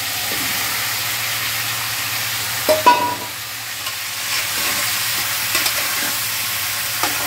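Potato, drumstick, taro and eggplant pieces frying in hot oil in an aluminium pot, with a steady sizzle. About three seconds in, one sharp metallic clank rings briefly as the eggplant is tipped in, then a metal spatula stirs with light scrapes and clicks.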